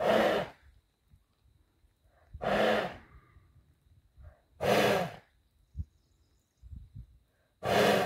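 Arabian horse blowing hard through its nostrils in four loud, whistling snorts about two and a half seconds apart: the snort of an alert, excited horse, likened to a whistling kettle.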